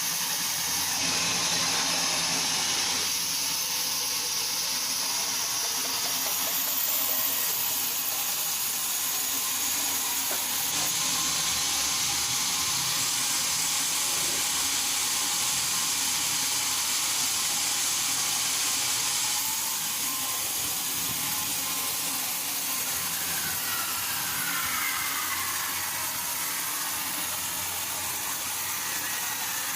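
Steady hissing noise, changing character abruptly a few times.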